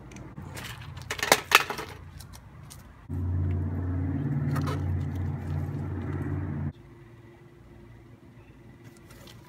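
A few sharp knocks, then a loud steady low engine hum that cuts in abruptly about three seconds in and stops just as suddenly about three and a half seconds later.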